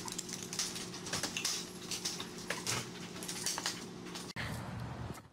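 Scattered clicks and clatters of small dogs' claws on a hard floor and on a wooden baby gate that has been knocked flat, over a steady electrical hum. About four seconds in, it all cuts off abruptly.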